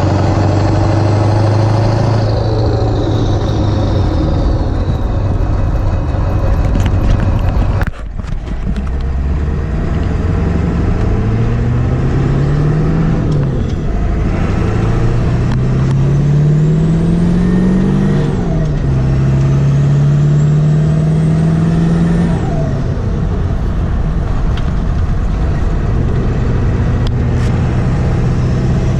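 Ford 7.3 Powerstroke V8 turbodiesel with 160/30 injectors pulling under load while driving. The engine note climbs and drops back several times as the transmission shifts up, with a brief break about eight seconds in. A high turbo whistle rises and falls with the pulls.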